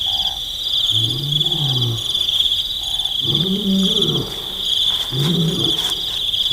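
A wild cat gives repeated low calls that rise and fall, each about a second long, coming about every second and a half. Behind them crickets chirr steadily at night.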